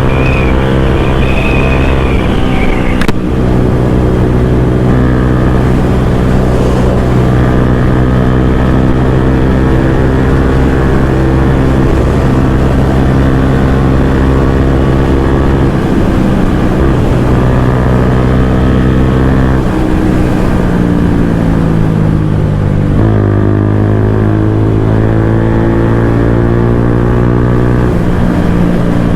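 Bajaj Pulsar N160's single-cylinder engine through a full-system aftermarket exhaust, running hard at a steady pitch for long stretches, with the note changing a few times, dropping and rising again near the end.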